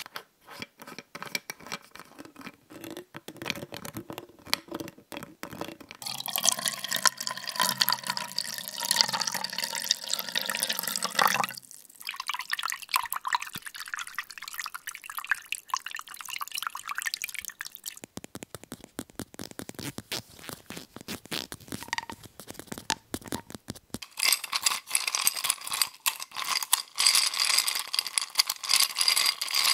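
A run of close-miked drink sounds: a plastic water bottle crackling and its cap twisted open, then water poured for about five seconds. A quieter stretch of light clicks and clinks of ice and water in a bowl follows, and near the end a few seconds of a drink sipped through a straw from a glass of ice.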